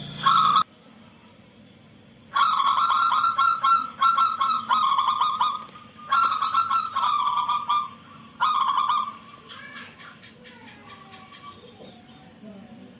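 Zebra dove (perkutut) singing its rapid staccato cooing song in four phrases: a brief one at the start, a long one of about three seconds, a shorter one and a brief last one about eight seconds in. Fainter bird calls follow near the end.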